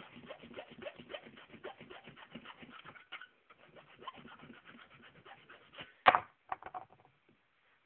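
Hand file rasping in quick, even strokes across a steel key blank, taking metal off its top edge to sharpen it to a knife edge for self-impressioning. The strokes fade after about three seconds, one louder, sharper stroke comes about six seconds in, and the filing stops about a second later.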